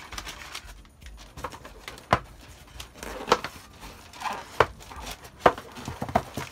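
Hard objects being handled and set down: a series of sharp clicks and knocks, about five or six strong ones, spaced irregularly.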